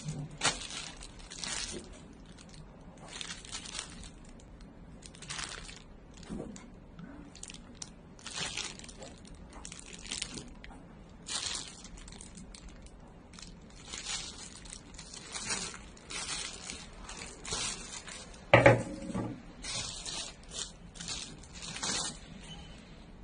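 Clear plastic packaging bags crinkling and rustling in repeated short bursts as plastic bicycle saddles are picked up and handled, with one louder knock about two-thirds of the way through.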